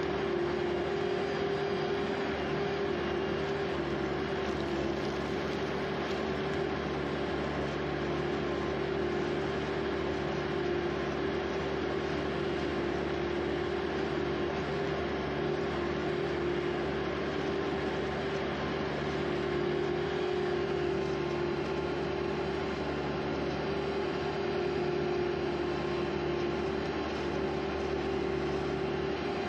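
Skid steer engine running at a steady speed, with a steady droning tone.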